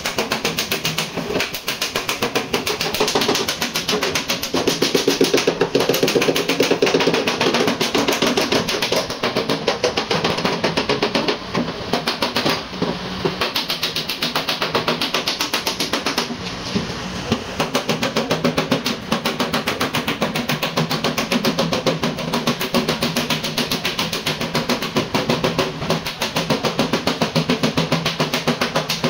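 Body hammer tapping rapidly and steadily on the sheet-metal skin of a Toyota Hilux Vigo door, working out a dent.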